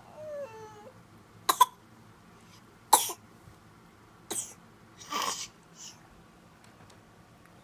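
Baby making a short gliding coo, then a string of short cough-like noises: a quick double cough about a second and a half in, then single ones a second or so apart, the last one longer.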